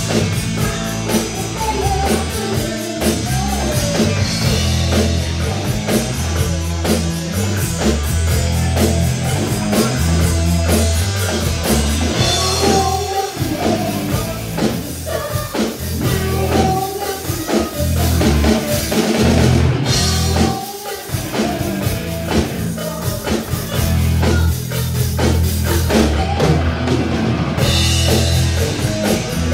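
A live rock band playing: electric guitar, bass guitar and drum kit, with a brief drop in loudness about two-thirds of the way through.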